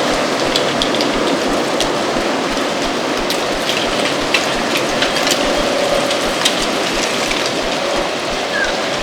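Stormy autumn wind blowing steadily, with dry leaves skittering on the ground as scattered crisp ticks throughout.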